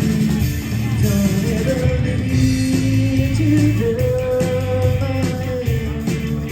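Rock trio playing live: electric guitar, bass guitar and drums, with long held notes over a steady beat.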